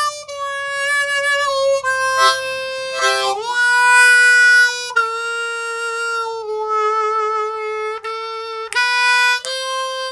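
A diatonic harmonica in C plays a slow chromatic descent of long held notes, one semitone at a time (D, D♭, C, B, B♭, A). The drawn notes on holes 4 and 3 are bent down a half step, and on hole 3 a whole step. Near the end it climbs back up more quickly.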